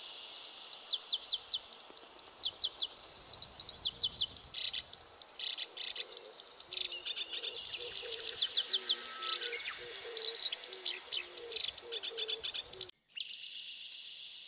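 Birds chirping and twittering in quick runs of short, high calls over a steady high hiss. After a brief dropout near the end, the calls mostly stop and the hiss carries on alone.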